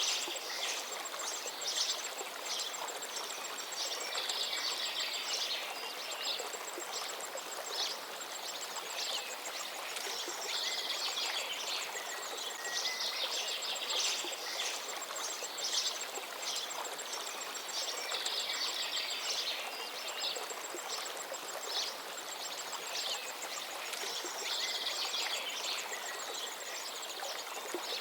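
River water flowing steadily. A bird sings short phrases every few seconds over it, and a thin, high ticking trill comes and goes.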